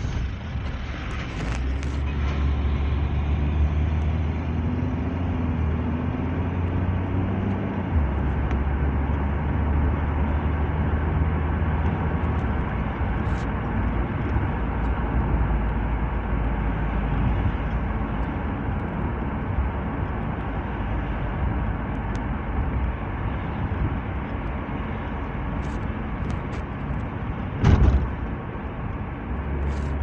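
A car driving, its engine and tyre noise a steady drone, with the engine note rising in the first several seconds as it accelerates. Near the end comes one brief loud thump.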